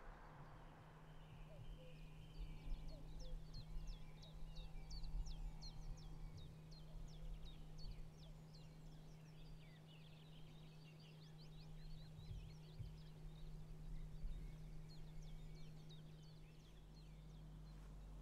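Small birds chirping and singing, faint runs of quick high notes, over a steady low hum and a low rumble.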